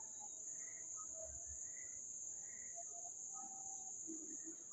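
Faint, steady, high-pitched chorus of crickets.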